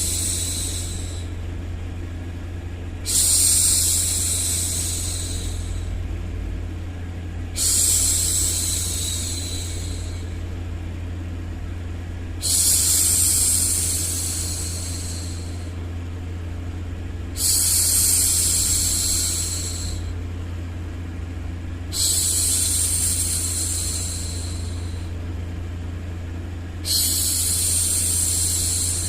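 A woman's shushing 'shhh', a long hiss repeated about every five seconds, six times here, over a steady low white-noise hum. This is a looped hushing sound for settling a baby to sleep.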